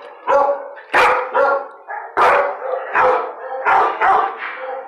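A large bully-breed dog barking over and over, about two loud barks a second.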